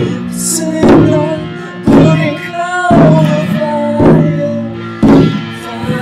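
Live rock song played on guitar and drum, with a heavy drum hit about once a second under sustained guitar chords and a wavering sung line.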